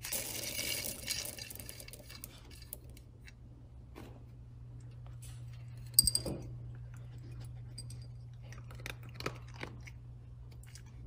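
Dry dog kibble rattling as it is scooped from a glass container. About six seconds in there is a single sharp clink as it drops into a ceramic bowl, followed later by a few faint small clicks.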